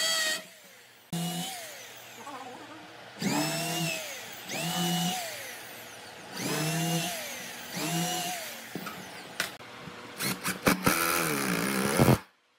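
Hand-held electric drill boring holes into a wooden strip in short runs, about four times, the motor whine rising as it spins up and falling as it winds down each time. Near the end a few knocks, then a cordless drill-driver runs for about a second before stopping abruptly.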